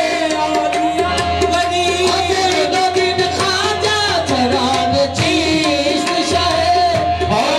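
Live qawwali: a harmonium holding a steady note under wavering sung lines, with tabla drumming.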